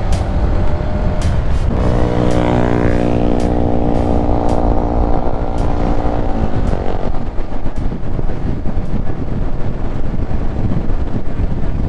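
Motorcycle riding at speed: heavy wind and road rumble on the mic, with a steady droning tone from about two to about seven seconds in and scattered sharp clicks.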